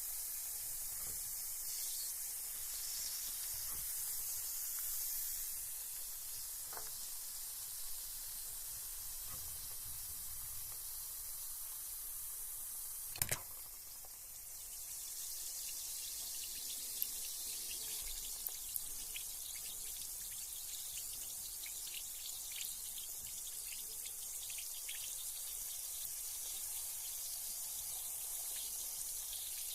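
Carbonated bath bomb fizzing in bathwater: a steady high hiss of bubbles with scattered small pops and drips. One sharp click stands out about halfway through.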